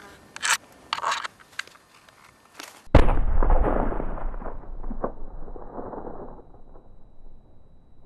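A demolition charge destroying a landmine in place goes off about three seconds in: one sudden loud blast, then a low roar that dies away over about four seconds, with a few scattered cracks. Before it, a few short sharp clicks as the electric blasting machine is worked.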